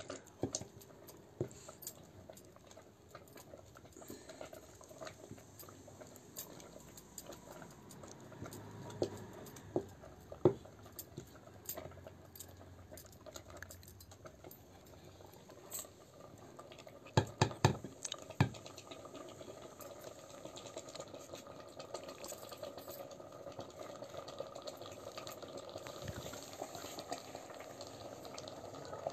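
A ladle stirring and scraping thick sarson da saag (mustard greens) in a metal pot, with scattered sharp clicks and a quick run of knocks about 17 seconds in.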